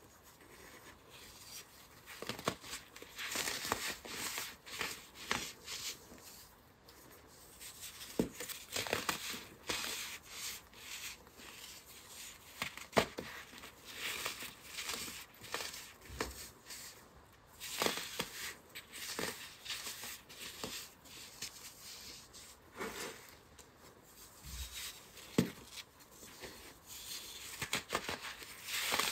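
Hands breaking and crushing dried, dyed baking soda blocks: crisp cracks as pieces snap apart, between stretches of gritty crumbling as the chunks are squeezed to powder between the fingers. The sharpest snaps come about halfway through and again near the end.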